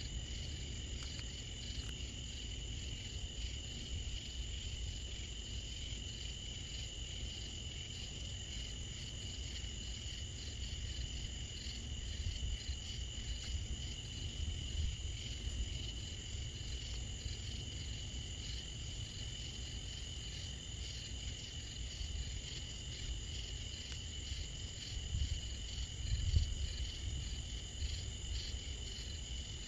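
Night insects, crickets, chirping in a steady high-pitched chorus with a fast even pulse. A low rumble runs underneath and swells briefly about 26 seconds in.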